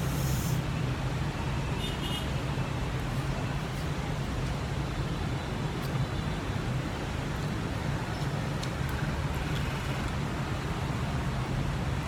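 Steady city street traffic noise: an even rumble and hiss of passing vehicles with a low hum underneath.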